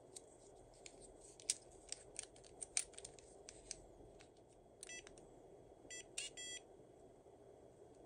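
WELOCK smart lock fingerprint knob giving short electronic beeps a few times past the middle as it accepts a finger and unlocks. Light clicks come from the knob and lock cylinder being handled and turned.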